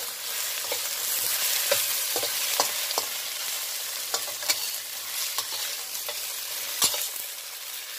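Food stir-frying in a hot oiled wok: a steady sizzle, with the spatula clicking and scraping against the wok about once a second and one louder knock near the end.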